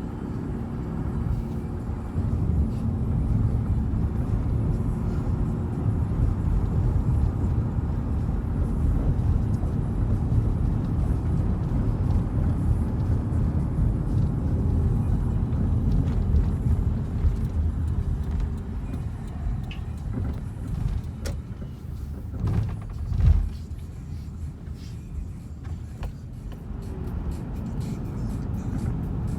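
Steady low road and engine rumble heard from inside a moving car, with a brief louder bump about three-quarters of the way through.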